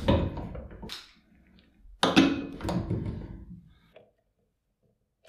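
Knocks and clunks of metal machine parts being handled on a workbench: two louder knocks about two seconds apart, each ringing on briefly, with lighter knocks and a few faint clicks between and after.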